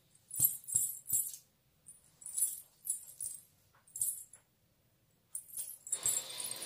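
Small silver ghungroo bells on bridal toe rings and anklets jingling in short bursts as the feet step in rubber flip-flops. There is a brief pause a little past the middle, then a last flurry near the end.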